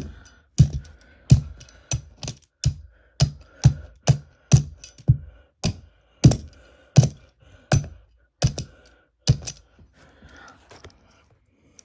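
Hammer blows on a plastic Rubik's Cube: about fifteen sharp clacking strikes in a steady rhythm, roughly one and a half a second, stopping about nine seconds in.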